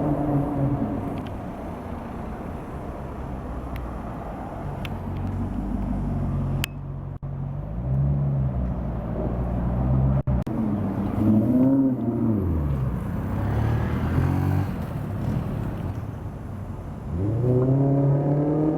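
Modified Maserati GranTurismo V8 with a tuned exhaust running at low speed, its engine note rising and falling through several blips of the throttle in the middle, then climbing steeply near the end as the car accelerates.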